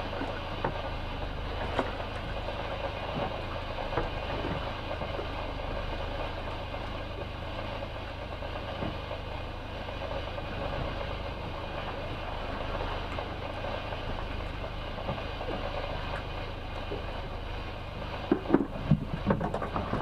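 Outboard motor running steadily at trolling speed, with a few light clicks. About two seconds before the end comes a quick run of loud knocks and thumps.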